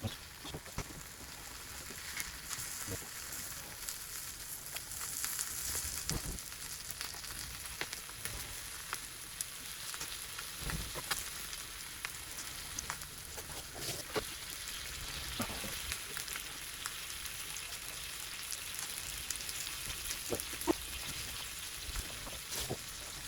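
Chicken thigh frying skin-side down over low heat from a solid-fuel burner: a steady sizzle with scattered small pops of fat.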